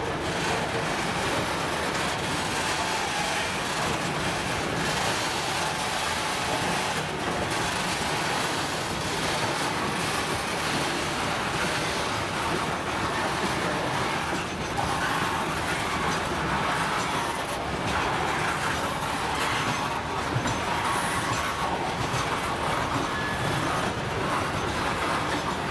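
Freight train wagons, open gondolas and then covered hoppers, rolling past on the rails: the steady, unbroken running noise of steel wheels on track.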